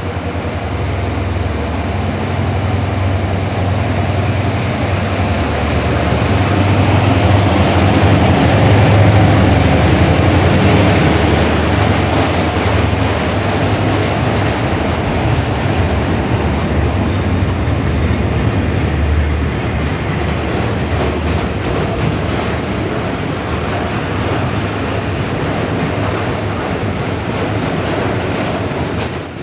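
Diesel-hauled freight train running through a station at close range. The locomotive's deep engine rumble is loudest about eight to ten seconds in, then the wagons roll past, with high wheel squeals and clicks in the last few seconds.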